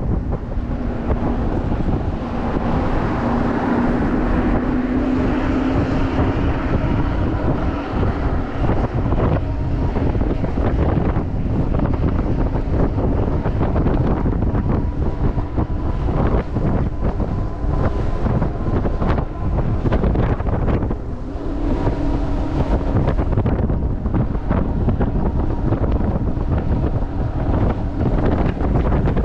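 Wind buffeting the microphone of a Super73 electric bike riding along at speed, with tyre and road noise. A low motor hum rises slightly in pitch over the first few seconds and comes back briefly about 22 seconds in.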